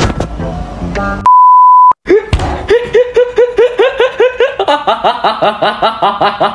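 A single steady 1 kHz censor bleep lasting about half a second, then a young man laughing hard, a rapid run of 'ha's, about four or five a second.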